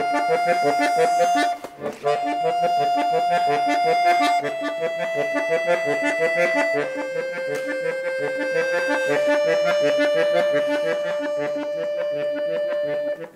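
Accordion played with both hands. The right hand holds a slow melody of long notes, about five of them, that step down and then rise again, over a steady, evenly repeating left-hand accompaniment. There is a brief break about two seconds in, and the playing stops just before the end.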